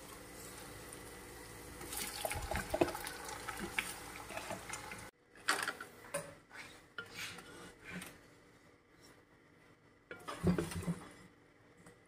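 Kitchen handling sounds: scattered knocks and clinks of a metal cooking pot and utensils, including a wooden spatula working in the pot. For the first five seconds they sit over a steady hiss, which cuts off suddenly.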